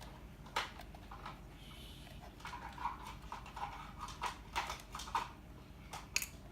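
Irregular light clicks and taps of hard plastic and small metal as a PS4 controller is handled and worked on with a small screwdriver during disassembly.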